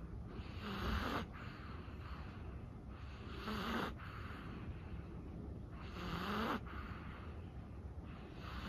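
A sleeping Chihuahua snoring, one breath every two and a half to three seconds. Each breath is a hiss with a short tone that rises and falls. Three come in full, and a fourth starts near the end.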